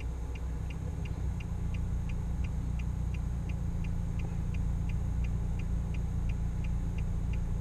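Car engine idling with a steady low rumble inside the cabin, with a light regular ticking about three times a second.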